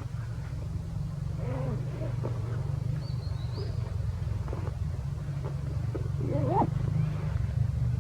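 Macaques giving short rising and falling calls, twice, the second about six seconds in the loudest, over a steady low rumble.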